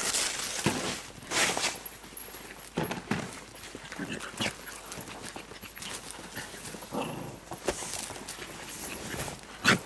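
Two small dogs playing rough on dry dirt: paws scuffling and scratching the soil as they chase and dig, with short dog vocal noises. A sharp thump comes just before the end.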